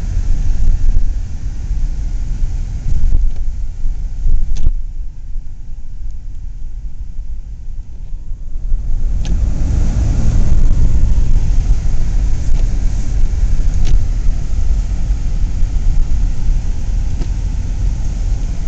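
Low, steady rumble of a car's engine and tyres heard from inside the cabin while driving. It eases for a few seconds about a third of the way in, then comes back louder.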